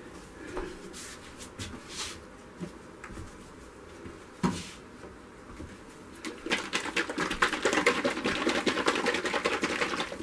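Plastic squeeze bottle of black acrylic paint being shaken hard, a rapid rattling over the last four seconds or so. Before that, a few scattered clicks and knocks of bottles being handled.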